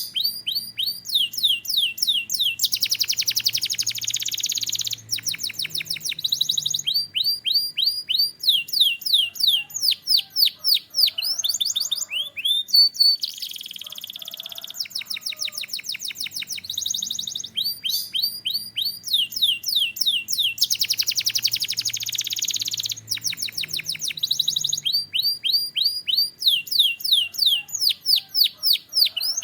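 Domestic canary singing: fast runs of high sweeping whistled notes alternating with buzzy rolling trills, in a continuous song.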